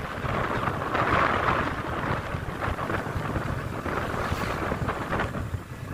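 Wind buffeting the microphone of a riding motorcycle, in uneven gusts of hiss over a steady low rumble.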